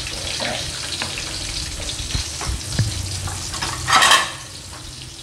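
Thick coconut-cream sauce sizzling and bubbling in a frying pan while a spoon stirs and scrapes through it. A brief, louder scrape comes about four seconds in, after which the sizzling is quieter.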